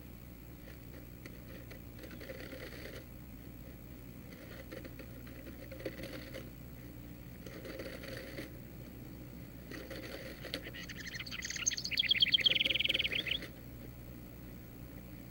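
A house wren's song nearby: a loud run of rapid repeated high notes lasting about two and a half seconds, starting a little after the middle. Underneath, a steady low electrical hum.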